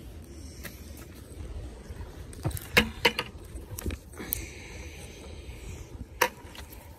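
Handling noise while crayfish are picked up by a gloved hand from a gravel road: a few sharp knocks and clicks, the loudest about three seconds in, and a rustling scrape between four and six seconds in, over a low steady rumble.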